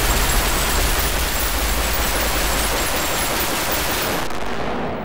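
A loud, steady rushing noise with a deep rumble underneath, fading out about four seconds in.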